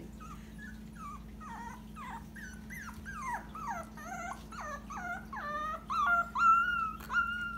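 Dachshund puppy whimpering and howling: a run of short cries that fall in pitch, turning into longer, higher held howls toward the end, the loudest about six and a half seconds in.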